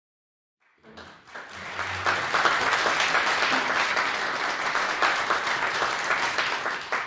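Audience applauding: a dense patter of many hands that fades in over the first two seconds, holds steady, and begins to fade near the end.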